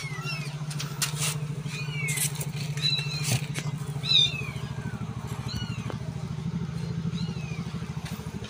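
Several young kittens mewing over and over in short, high calls, over the steady low hum of an engine running. A few knocks and rustles come from the cardboard box they are in as it is handled.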